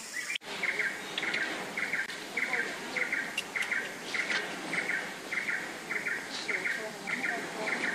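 A rhythmic chirping call repeated about twice a second, each note a quick rattle of clicks, over a steady outdoor hiss, with a few faint higher chirps among it. The sound drops out briefly just after the start.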